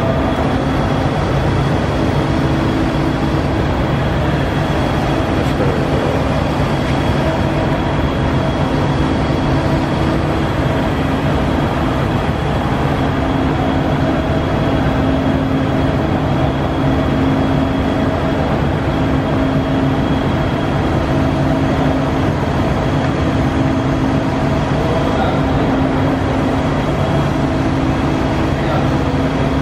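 Kuraki AKB-13 CNC horizontal boring mill running: a steady, even machine hum made of several held tones, with a thin high whine above them.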